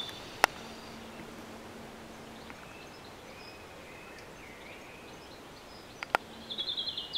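Quiet rural outdoor background with faint bird chirps, two sharp clicks about half a second and six seconds in, and a short bird trill near the end; no bells are ringing.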